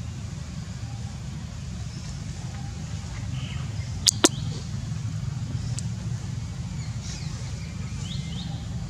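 Outdoor forest ambience: a steady low rumble, with two sharp clicks in quick succession about four seconds in and a few faint short bird chirps near the end.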